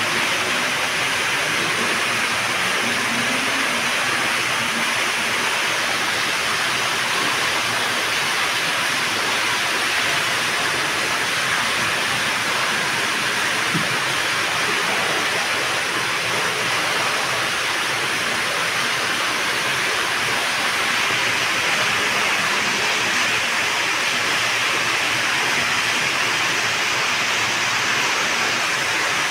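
Water from a sheer-descent waterfall feature pouring into a swimming pool: a steady splashing rush of water.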